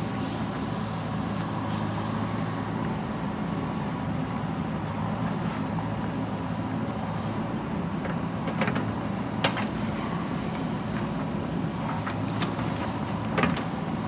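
JCB 3DX backhoe loader's diesel engine running steadily under hydraulic load as the backhoe bucket digs rocky soil. A few sharp knocks of bucket and stones come through, the loudest a little past halfway and again near the end.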